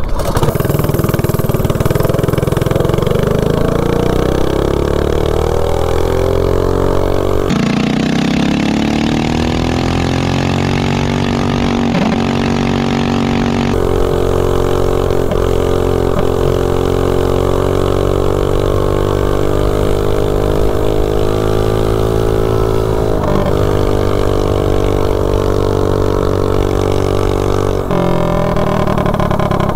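Minibike's Duromax 208cc single-cylinder engine at full throttle on a top-speed run, running a Mikuni VM22 carburetor with a 120 main jet and about 8 degrees of advanced timing. Its pitch climbs as the bike gathers speed, then holds steady and high, and the revs fall near the end.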